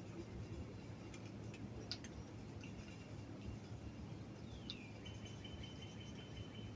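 Quiet outdoor backyard ambience with a low steady hum and a few faint clicks. Past the middle, a thin high call slides down in pitch and then holds one steady note.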